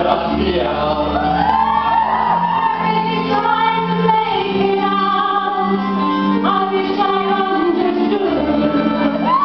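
Women singing a pop song into microphones over backing music, amplified through a PA, with long held notes over a steady bass line.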